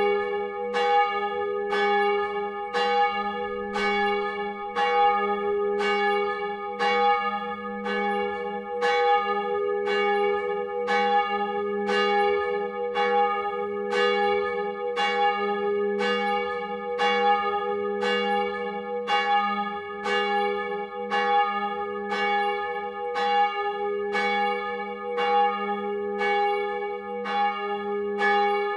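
A 1948 Petit & Fritsen bronze church bell swung on a straight axle, its clapper striking in an even rhythm about once a second. Each stroke rings on into the next.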